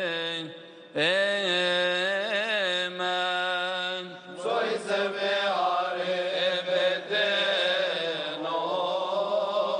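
Unaccompanied Coptic Orthodox liturgical chant sung by deacons. One voice carries a long ornamented melody, and a fuller group of voices takes up the chant about four seconds in.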